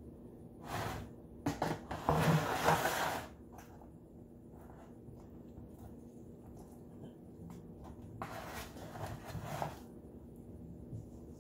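Clear plastic wrap crinkling and rustling as it is pulled over a raw turkey, in short bursts: the loudest about two to three seconds in, and another longer stretch near the end.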